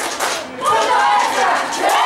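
Crowd of spectators shouting and cheering, many voices at once; a short lull near the start, then the shouting swells loudly about halfway through.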